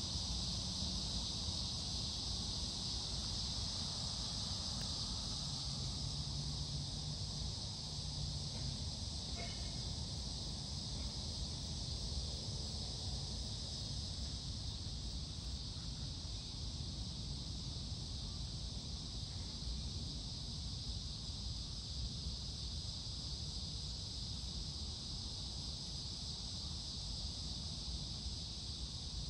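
Steady high-pitched chorus of insects, over a low rumble.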